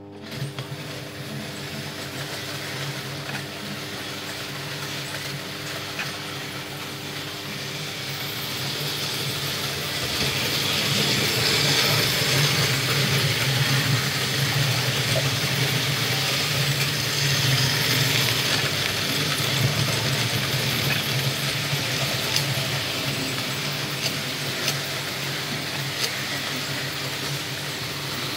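Märklin model trains running on metal track: a steady motor hum and wheel rumble with a hiss, growing louder about ten seconds in as a train comes nearer. A few sharp clicks stand out.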